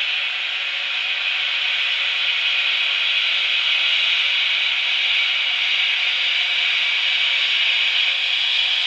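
Steady hiss of escaping steam from steam locomotive No. 315, growing a little louder as the engine comes closer.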